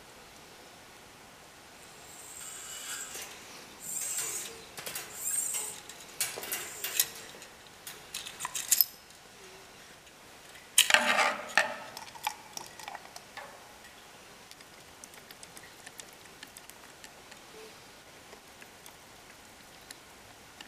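Light metallic clinks, scrapes and rustles as a Bing carburetor's slide cap, with its brass cable adjuster, is handled and a steel throttle cable is fed through it. After a brief lull, a louder clatter about halfway through tapers off into occasional small ticks.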